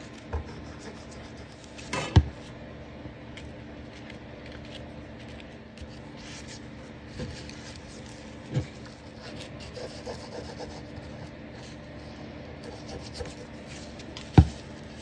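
Fingers rubbing and pressing lace and a paper tag onto a glued card on a tabletop. A few short thumps come through, the loudest about two seconds in and near the end.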